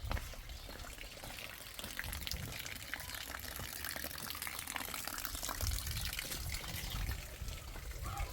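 Running water: a steady hiss full of small splashes, with a low rumble underneath.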